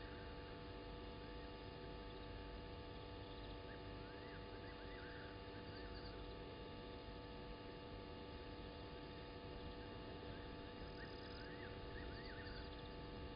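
Faint night ambience at a bush waterhole: a steady hum of several fixed tones, with short clusters of quick rising-and-falling chirps from a small animal about four seconds in and again near the end.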